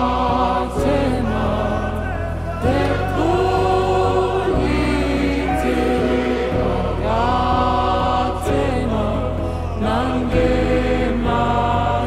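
Background music: a slow song with sung, choir-like voices over held bass notes that change every second or two.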